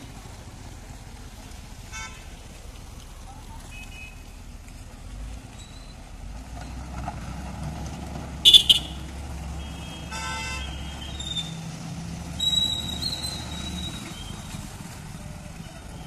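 Street traffic with a motor grader's diesel engine running as a steady low rumble, and vehicle horns tooting several times. The loudest is a short double toot about eight and a half seconds in.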